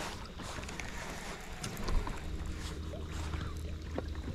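Fishing boat on the water: a steady low rumble with a few light knocks and clicks.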